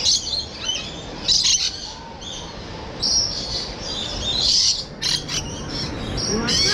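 Lorikeets calling: many short, high-pitched screeches and chirps overlapping, several a second.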